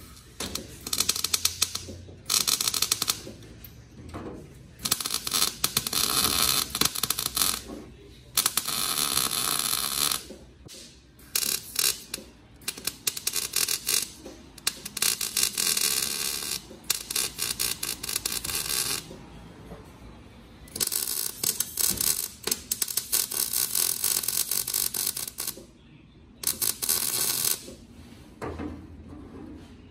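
MIG welder stitch-welding the sheet-steel floor seam of a truck bed: a series of crackling welding bursts, each a second or two long, with short pauses between them.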